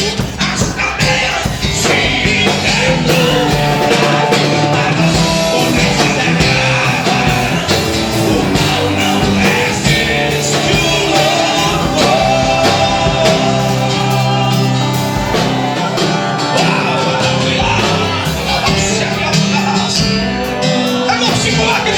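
Gospel worship song played by a band with drums, with singing.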